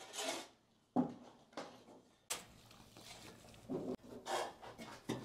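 A shovel scraping through a pile of sand and cement on a concrete floor in about five separate strokes, mixing mortar.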